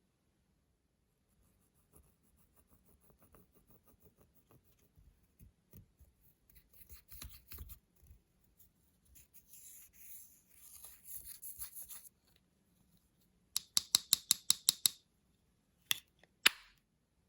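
Slime being handled and mixed close up: soft, sticky crackling and scraping that grows louder, then a quick run of about nine sharp clicks over a second and a half, and two more clicks near the end.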